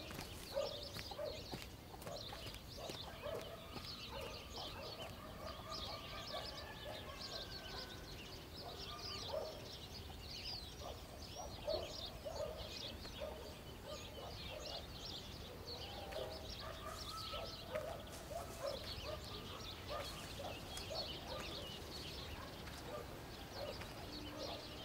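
Rural yard ambience: domestic fowl calling off and on, with many small birds chirping, high and quick.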